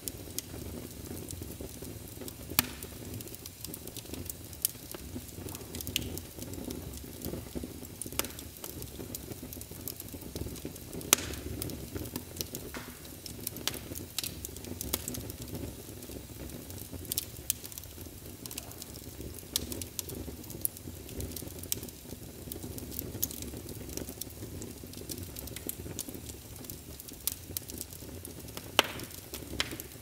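Crackling fire: a steady low rush with sharp, irregular pops and snaps scattered throughout.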